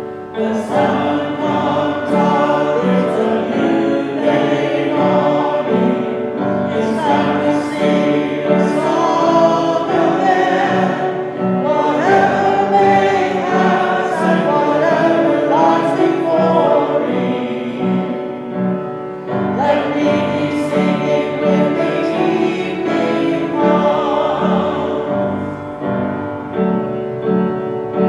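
Voices singing a contemporary worship song together, accompanied by piano with a steady repeating pattern of low notes.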